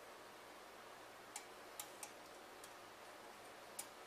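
Kitchen tongs clicking against the ceramic crock of a slow cooker while trying to grip a tender steak: about five light, irregularly spaced ticks over faint room hiss.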